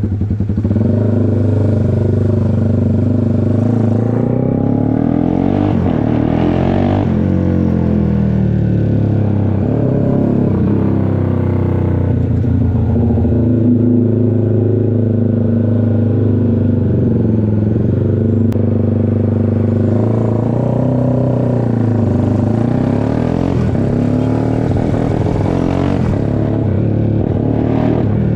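Honda CBX 250 Twister single-cylinder engine, bored out to 79 mm, running loud through a tuned aftermarket exhaust. Its pitch holds mostly steady and rises and falls a few times.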